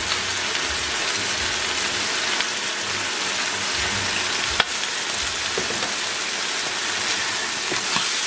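Chicken livers and shallots sizzling steadily in butter in a frying pan, with one sharp click about halfway through.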